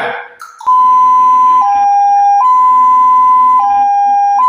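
Ambulance siren in its two-tone hi-lo pattern, alternating between a higher and a lower steady tone about once a second and starting just under a second in. It is the signal used when the ambulance is on its way to pick up a patient who needs urgent help, and it sounds like a railway crossing signal.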